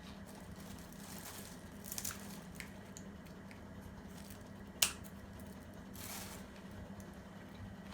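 Raw prawns being cleaned by hand: a few scattered sharp snips and clicks, a double one about two seconds in and a louder one near five seconds, with a brief soft rustle after, over a low steady hum.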